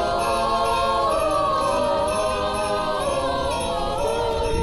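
A mixed choir of carolers singing a carol in harmony, several voices holding long notes together, a phrase ending near the end.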